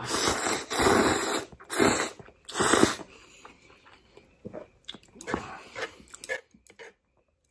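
Instant noodles, coated in sauce, slurped noisily from chopsticks in several long pulls over the first three seconds, then quieter chewing with small wet mouth clicks.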